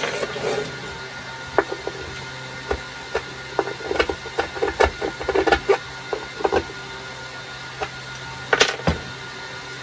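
Scattered light clicks and taps of small tools and parts being handled on a wooden workbench, with a louder clatter near the end, over a steady low hum.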